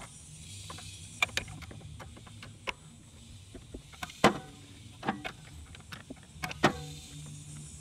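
Channellock pliers gripping and turning a Vespa LX's oil filter to loosen it: a string of irregular sharp metal clicks and knocks, the loudest about four seconds in.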